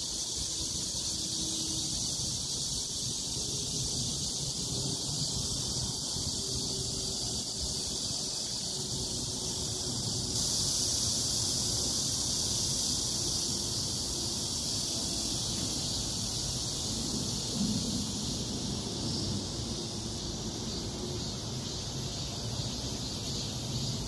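Outdoor ambience among bamboo: a steady high-pitched insect chorus, with wind and rustling leaves underneath.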